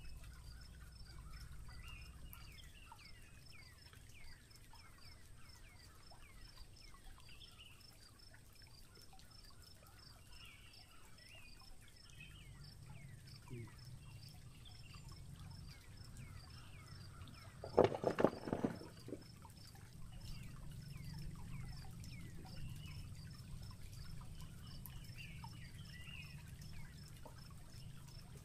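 Forest stream ambience: shallow water trickling over rocks while birds call with short, falling chirps. A little past halfway there is one brief, louder voice-like cry.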